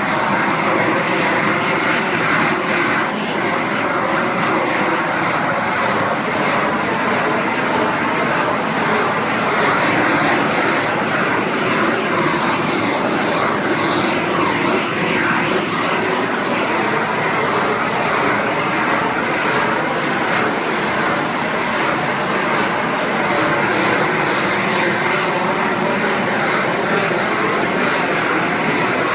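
Propane shrink-wrap heat gun (18,000 BTU) running steadily, its flame blowing with a constant rushing noise as it heat-shrinks plastic boat wrap.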